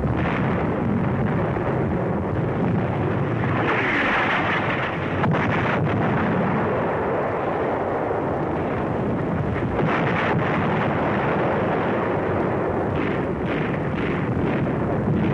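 Continuous rumble of battle sound: explosions and artillery fire blending into a steady roar, with a few sharp cracks of gunfire about a third of the way in, around the middle, and near the end.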